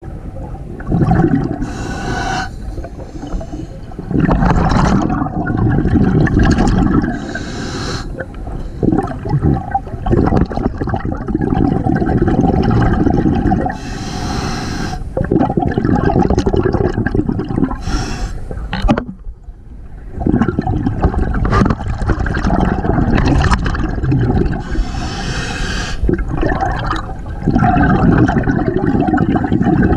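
Scuba diver breathing through a regulator underwater: several sharp hissing inhales, each followed by a long bubbling rumble as the exhaled air escapes.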